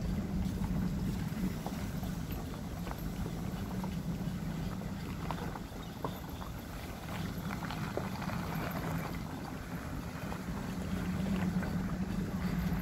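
Pickup truck slowly towing a boat on its trailer over gravel: a steady low drone from the truck and rolling tyres, with scattered light clicks and rattles from the trailer and gravel, and wind on the microphone.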